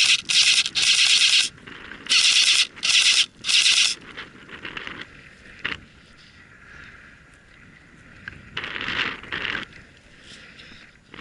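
Loud scraping rustles against the microphone in several bursts over the first four seconds, typical of gear or brush brushing past a body-worn camera while moving. It then goes quieter, with a single sharp click about six seconds in and one more rustle around nine seconds.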